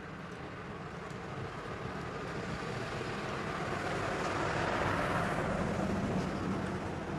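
A vehicle passing: a steady rushing noise that swells to its loudest about five seconds in, then starts to fade.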